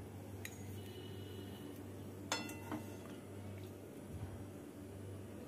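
Steel ladle clinking against cookware as fritters are ladled out of a pan: a light clink about half a second in, a sharper ringing clink a little past two seconds, then a softer one, over a steady low hum.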